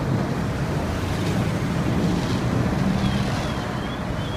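Steady low rumble of fire apparatus engines running at the fireground, under an even hiss of outdoor noise and the hose stream. A faint warbling tone rises and falls from about three seconds in.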